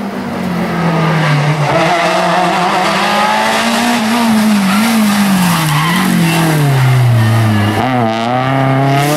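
Peugeot rally car's engine under hard driving through a corner, the pitch rising and falling with the throttle, sinking low, then climbing steadily about eight seconds in as the car accelerates away. Tyres scrabble on loose gravel.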